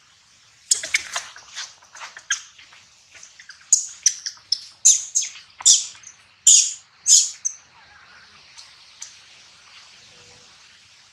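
A baby macaque squealing: a quick run of short, high-pitched cries that starts under a second in and stops about seven and a half seconds in, the loudest cries near the end of the run.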